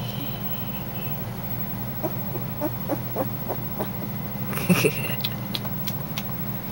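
Puppies eating: a short high squeak at the start and a louder squeal about two-thirds of the way in, among short quick clicks, over a steady low hum.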